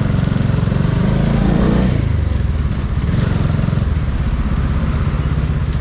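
Bajaj Dominar 400's single-cylinder engine running under way, heard from the rider's position with road and wind noise. The revs rise briefly between one and two seconds in, then settle back to a steady pulse.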